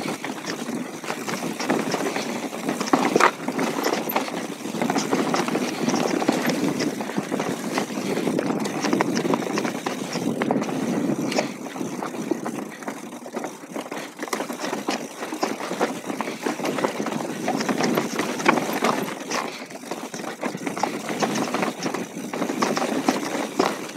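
Mountain bike ridden downhill over a rocky trail: tyres rolling over stones, with a continuous rattle and frequent sharp knocks from the bike.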